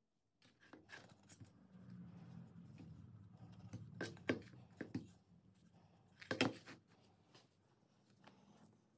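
A wooden board handled and set down on a work table: a few light knocks and scrapes, the loudest about four and six and a half seconds in, over a faint low hum.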